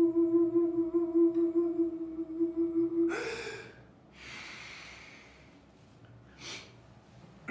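A man humming one long, steady note that ends about three seconds in with a breathy exhale, followed by soft breathing and a short breath near the end.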